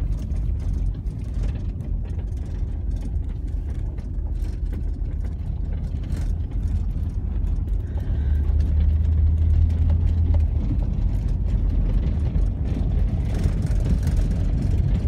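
Car engine and tyres on a loose gravel road, heard from inside the car: a steady low rumble with scattered clicks of gravel. A deeper drone swells about eight seconds in, and the rumble stays louder from then on.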